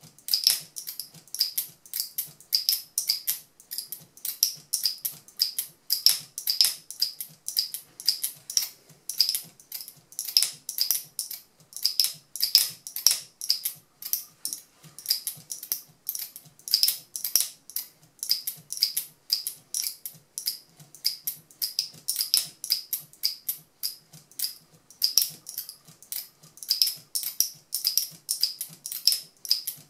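Speargun camera mount's locking mechanism being snapped shut and released over and over on the speargun barrel: a fast, uneven run of sharp clicks, several a second.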